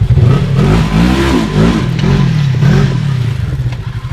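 Side-by-side UTV engine revving in a series of quick rises and falls in pitch, about five in a row, then settling back to a steady throbbing run near the end.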